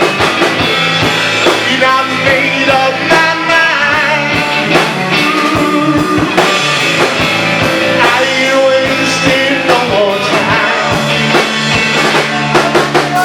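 Live rock band playing an instrumental passage, with electric guitar lines over drum kit and bass.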